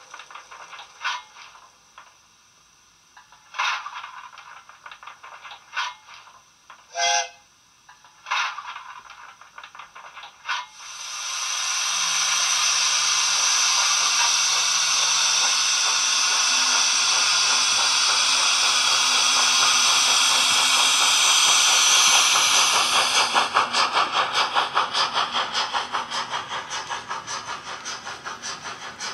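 Simulated steam locomotive sounds from a LokSound DCC sound decoder in a Hornby W1 'Hush Hush' model, played through a small 27 mm bass-enhanced speaker. For the first ten seconds there are scattered short clanks and hisses from the standing engine. Then a long, loud steam hiss starts, and near the end it gives way to a steady rhythm of exhaust chuffs as the locomotive pulls away.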